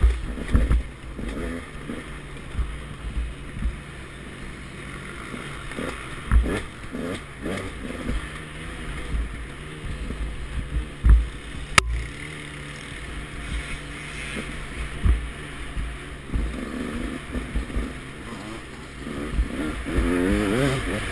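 KTM 200 XC-W single-cylinder two-stroke dirt bike engine revving up and down as it is ridden over rough woods trail, with frequent dull thumps from the bumps. A single sharp click about halfway through.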